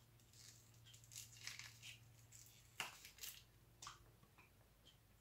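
Faint crinkling of a jerky stick's clear plastic wrapper as it is handled at the mouth, in scattered little crackles with a sharper click about three seconds in and another about a second later.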